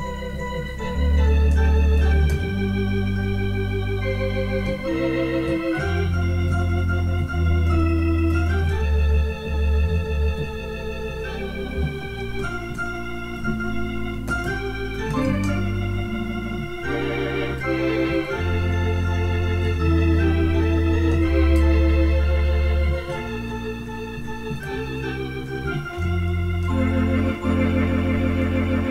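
Two-manual electronic home organ playing a slow instrumental melody with held chords over deep, sustained bass notes; the notes waver slightly with a vibrato effect.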